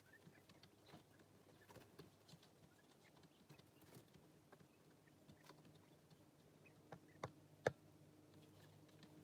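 Baby quail chicks pecking: many faint, irregular little taps and clicks, with three sharper clicks about seven seconds in.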